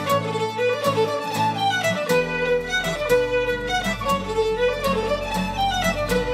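Background music: a lively tune led by a fiddle, with fast-moving melody notes over accompaniment. A deeper bass part comes in about two seconds in.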